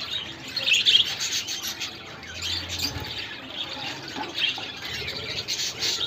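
A colony of budgerigars chirping and chattering: a busy, continuous run of short high chirps, densest about a second in.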